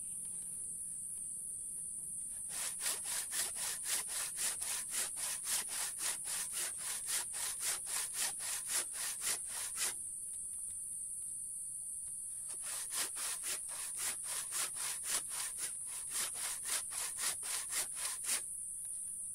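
Handsaw cutting through a slab of very hard mangosteen wood: two runs of rapid rasping back-and-forth strokes, about three a second, with a pause of a few seconds between them.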